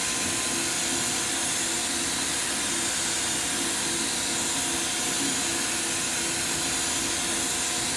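Brother TC324 drill and tapping center running with a steady hiss and faint hum while its Y axis is jogged.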